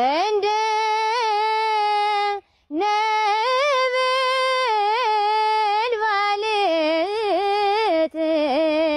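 A woman singing an Ethiopian Orthodox mezmur (hymn) solo, holding long wavering notes with ornamented turns. She pauses briefly for breath about two and a half seconds in.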